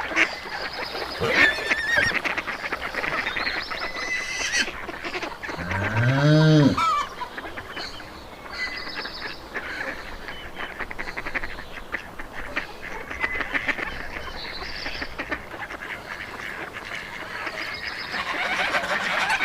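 Farmyard geese and other fowl calling continuously in overlapping honks and chatter, with one louder, deeper call that rises and falls about six seconds in.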